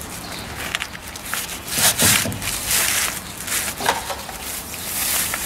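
Rustling and crinkling of a plastic banner sheet as hands press, slide over and fold it flat, in uneven strokes with the loudest about two seconds in.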